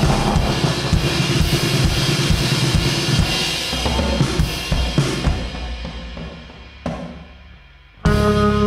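Instrumental post-rock band playing, with drum kit, snare and cymbal hits driving a dense band sound. The music dies away over a few seconds to near quiet, then the full band comes back in suddenly near the end with ringing sustained notes.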